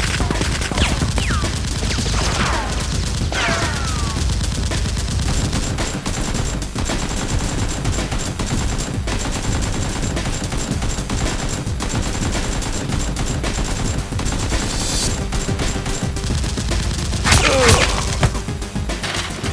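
Sustained rapid gunfire, a dense unbroken fusillade like automatic weapons, from gunfire sound effects laid over a Nerf battle. It grows louder for a moment near the end.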